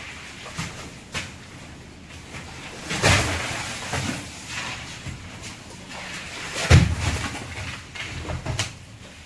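Frozen yellowfin tuna being hooked and pulled out of a pile of crushed ice: irregular knocks and scrapes, with heavy thuds about three seconds in and again near seven seconds.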